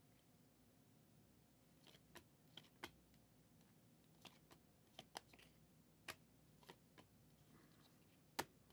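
Faint, irregular clicks and snaps of Prizm trading cards being flipped through by hand, starting about two seconds in.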